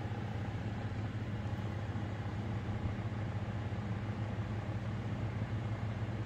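Grow-tent ventilation fans running: a steady low hum with an even airy hiss over it.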